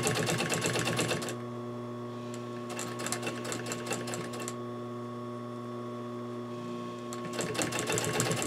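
Industrial sewing machine top-stitching fabric in three short runs, the needle mechanism rattling fast and evenly, with a steady hum continuing between the runs.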